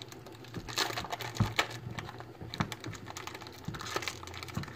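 A foil trading-card pack wrapper being handled and torn open, crinkling with irregular small clicks and crackles.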